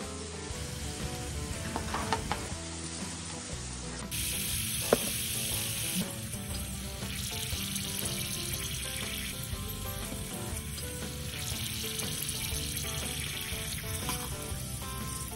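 Potato strips frying in hot oil in a miniature pan: a steady sizzle that turns brighter and louder after a cut about four seconds in. A few light clicks come through, at about two and five seconds.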